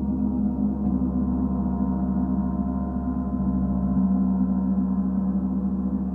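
Singing bowls ringing in a steady, sustained drone of several held tones, with a pulsing waver in the low notes.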